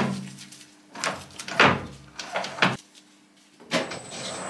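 Several sharp metallic clunks and clacks as the lathe's controls and tooling are handled, then the manual Colchester 1800 lathe starts up near the end, its running noise building steadily.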